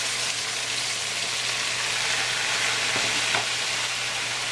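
Marinated chicken cubes sizzling in hot oil in a wok, a steady hiss of frying just after they have been poured in.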